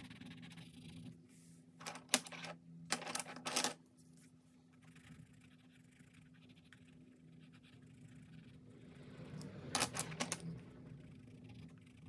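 Colored pencil scratching on sketchbook paper in short bursts of shading strokes: around two seconds in, again around three to nearly four seconds, and near ten seconds, over a low steady hum.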